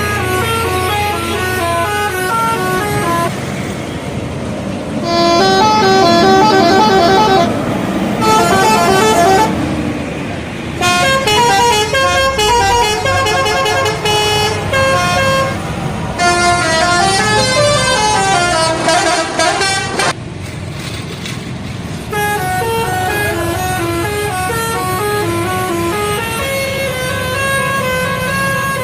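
Indonesian bus telolet horns, sets of multi-note musical horns, playing quick stepped melodies, one bus's tune after another with abrupt changes between them, over bus engine and traffic noise.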